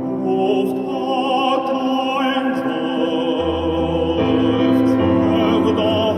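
Operatic baritone singing with vibrato over a piano accompaniment.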